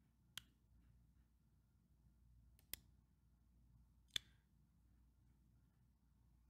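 Three separate computer mouse clicks over near silence, the last one the loudest.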